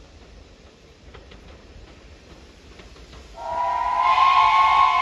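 Steam locomotive's whistle sounding once, a chord of several notes, starting about three and a half seconds in and still blowing at the end.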